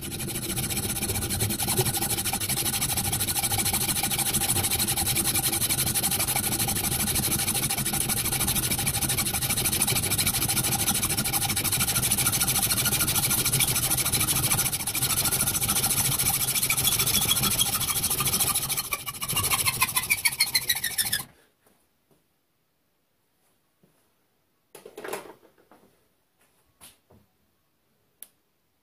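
Hand hacksaw cutting a hardened-steel wheel brace held in a lathe chuck: a continuous rasping cut with a ringing pitched tone from the blade and the hard steel. The strokes turn choppier for a couple of seconds before the sawing stops about 21 seconds in. It is followed by a few light knocks.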